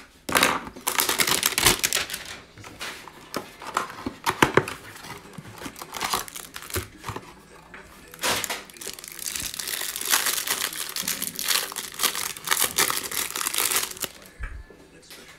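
Plastic wrapping crinkling and tearing in irregular bursts as a Mosaic football hanger box is opened and its stack of cards unwrapped by hand.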